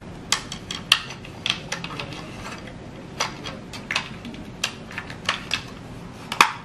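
Irregular sharp plastic clicks and taps from hands handling the plastic body and bed box of a WPL C24 RC pickup truck.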